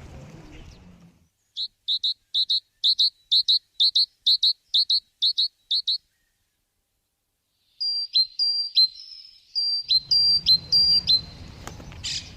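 Small songbird singing: a fast run of high, evenly repeated paired notes lasting about four seconds, then after a pause a second series of whistled notes with short downward slurs.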